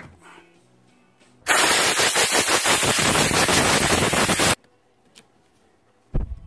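Compressed-air blow gun blasting caked dust out of a mixing drill's handle and switch housing: about three seconds of loud, fluttering hiss that starts and stops abruptly. A low thump follows near the end.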